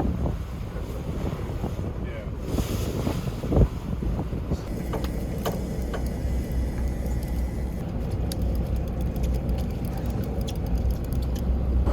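Motorboat engine running steadily, with wind buffeting the microphone. One sharp thump comes about three and a half seconds in, and a run of small clicks near the end.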